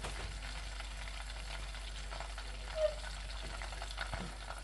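Butter simmering in a pot as it cooks down into ghee: a steady sizzle with fine crackling as the water boils out of the fat.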